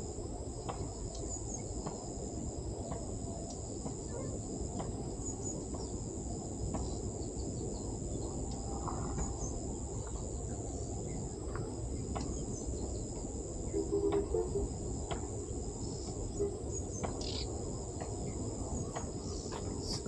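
Steady high-pitched drone of crickets or other insects over a low, even outdoor rumble, with a few short bird chirps scattered through.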